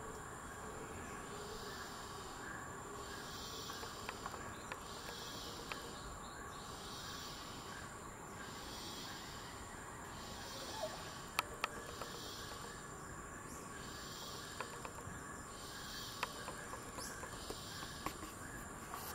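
Rainforest insects calling: a rhythmic buzzing pulse repeats about once every second and a half over a steady high-pitched whine. A few sharp clicks sound in the middle.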